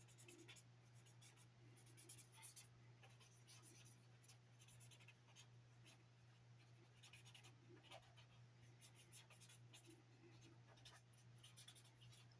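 Faint scratching of a pen on drawing paper in many short, irregular strokes as a sketch is detailed, over a low steady hum.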